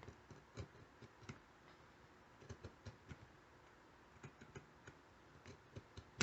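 Faint, irregular light clicks and taps of a razor blade and a wooden popsicle stick being worked by hand on a work mat, as the blade cuts into the stick. A slightly louder tap comes near the end.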